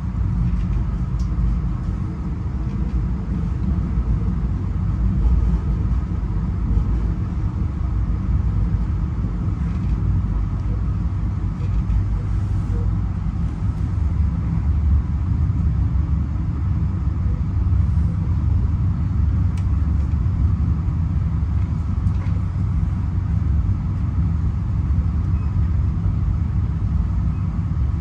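Steady low rumble of a moving passenger rail car heard from inside it: wheels and running gear on the track, with a few faint ticks and rattles.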